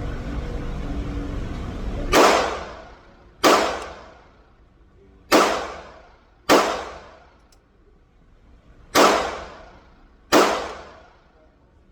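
Taurus G2C pistol fired in three double taps, six shots with a pair about every two to three seconds, each shot ringing out after it. A low steady rumble runs for the first two seconds and stops as the first shot goes off.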